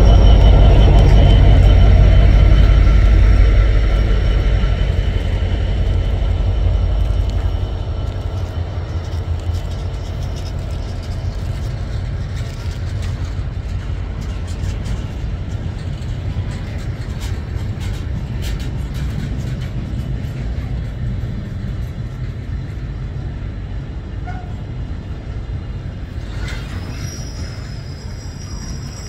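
Direct Rail Services Class 66 diesel locomotive passing close by: a loud low engine rumble with a steady whine that fades over the first four seconds or so. Then the steady rumble and clatter of a long intermodal container train's wagons rolling past.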